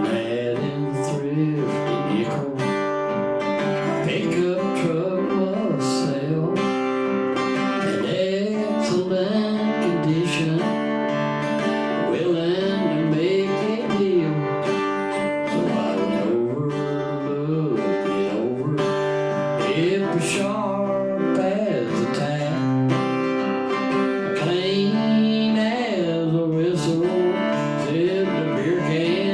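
Live acoustic guitar strumming with a man singing a country song over it.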